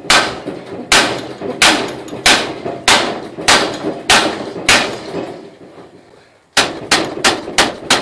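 Hammer blows on a large socket, driving the old front wheel bearing out of a steering knuckle held in a vise: sharp metallic strikes with a short ring, evenly paced about two-thirds of a second apart. After a pause of over a second near the end, faster blows follow, about three a second.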